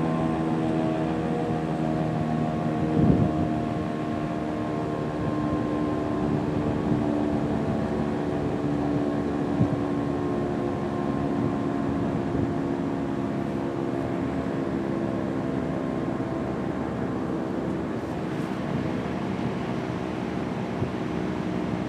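Federal Signal RSH-10 Thunderbeam outdoor warning siren sounding its steady alert tone, several pitches held together. There is a brief knock about three seconds in.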